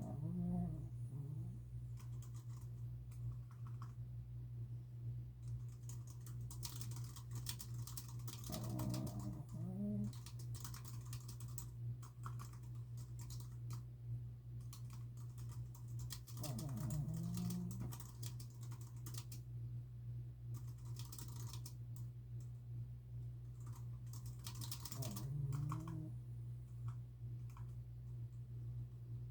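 Typing on a computer keyboard in bursts of rapid clicks, with a sleeping dog snoring: four pitched snores about eight seconds apart. A steady low hum runs underneath.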